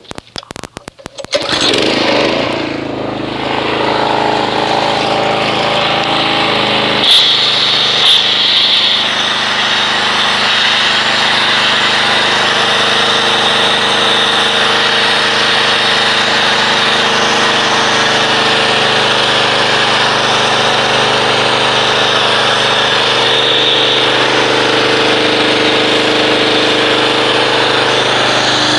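Pressure washer starting up and running steadily, driving an MTM PF22 foam cannon that sprays soap foam onto a car, a motor drone under a hissing spray. A burst of rapid clicks comes just before it starts, and about seven seconds in the sound shifts as the spray changes.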